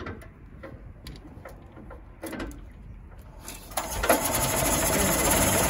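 1913 Leyland S3 bus engine being hand-cranked, with scattered light clicks, then catching about four seconds in and running steadily: a cold start on the starting handle.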